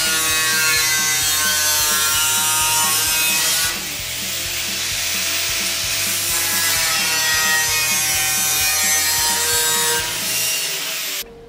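Angle grinder grinding the steel of a car body shell's rear quarter, its whine rising and falling as it is pressed into the metal. It eases off briefly about four seconds in and cuts out shortly before the end.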